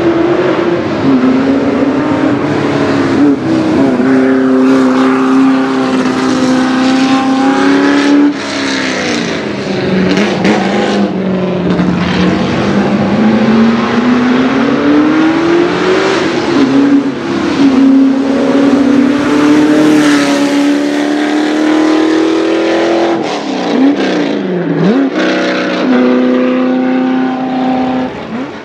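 Ford 351 Cleveland V8 of a De Tomaso Pantera hillclimb car accelerating hard and passing close. It pulls long and loud in each gear, and its pitch drops suddenly at each change of gear.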